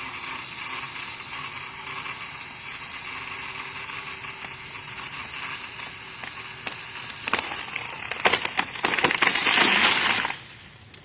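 A tree cracking as it gives way: a run of sharp cracks from about seven seconds in builds to a loud crash of the trunk and branches coming down, which stops abruptly about ten seconds in. Before that there is a steady background noise.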